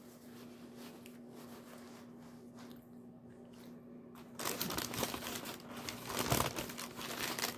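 Near quiet for about four seconds, then food wrapping crinkling and rustling as it is handled.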